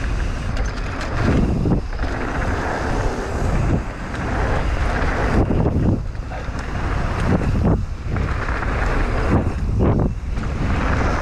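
Wind buffeting the camera microphone and knobby mountain-bike tyres rolling fast over a dirt trail, a loud rushing rumble that drops away briefly about every two seconds.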